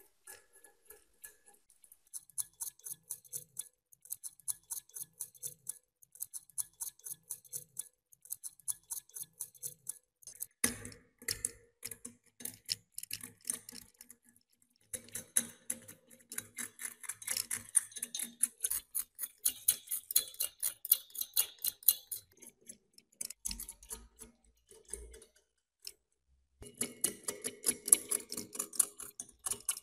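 Metal scraper working caked rust and dirt off a rusty antique meat grinder body in quick short strokes. It makes a dry, rapid scratching and ticking that stops briefly a few times.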